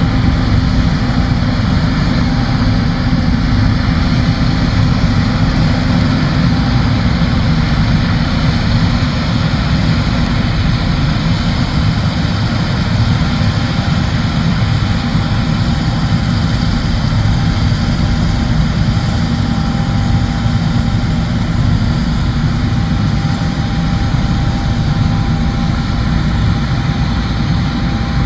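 Combine harvester running steadily while harvesting soybeans: a continuous dense mechanical drone with a few faint held tones.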